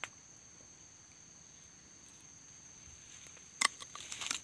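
A steady, high insect drone, like crickets, runs on throughout. Near the end comes a sharp snap, then crackling and rustling in the undergrowth.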